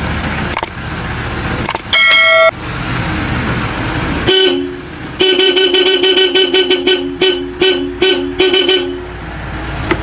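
Newly installed electric car horn being tested: one blast of about a second, then a run of short, quick toots, sounding two notes together.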